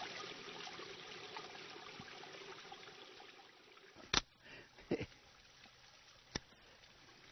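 Spring water trickling over beer cans chilling in a stone trough, fading over the first few seconds. Then a few sharp clicks, the first about four seconds in and the loudest, as the beer cans' pull tabs are cracked open.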